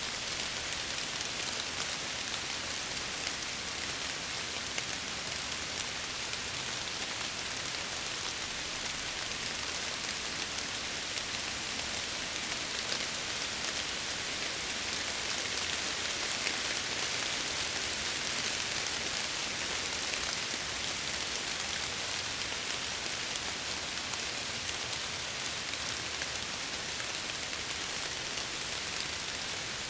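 Steady rain falling against apartment windows: an even hiss with scattered tiny drop ticks.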